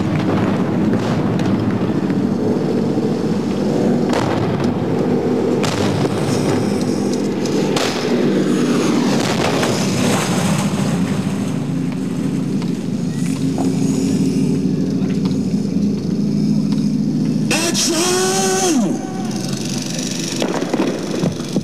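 Steady drone of aircraft engines over a string of sharp bangs from pyrotechnic charges going off in the harbour, some throwing up water. A short sound falling in pitch comes near the end.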